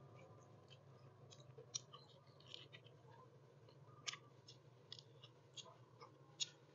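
Faint eating sounds: irregular small clicks and crunches of chewing, a handful of them a little louder, over a low steady hum.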